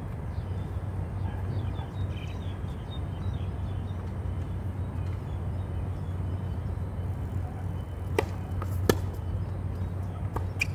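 Tennis ball struck twice about a second before the end, two sharp pops some three quarters of a second apart, the second louder, over a steady low background rumble.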